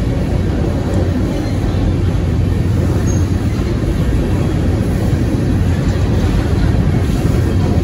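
Freight train of open-top coal cars rolling past at close range: a steady low rumble of steel wheels on rail.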